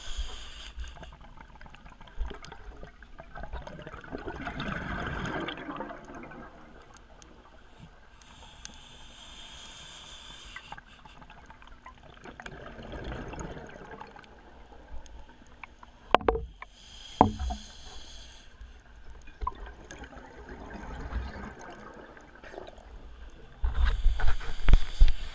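Scuba diver breathing on a regulator: a hiss on each breath in and a longer spell of bubbling on each breath out, repeating about every eight seconds. A few sharp knocks come about two-thirds of the way in, and there is a louder low rumble with knocks near the end.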